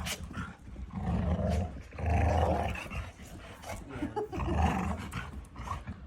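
Dog growling in three rough bouts, each about a second long.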